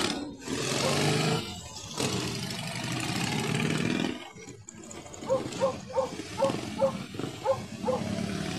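Motorcycle engines running as riders pass at road speed, followed from about five seconds in by a string of short horn toots, about three a second.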